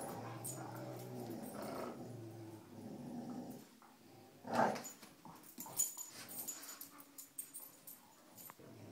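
Dogs growling in play during a rope tug-of-war: a low, steady growl for the first three and a half seconds, a short louder sound about four and a half seconds in, then scattered scuffling clicks.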